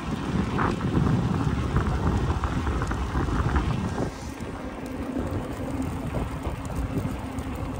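Wind buffeting the microphone of a camera carried on a moving electric bike, a low rumbling rush that eases about four seconds in.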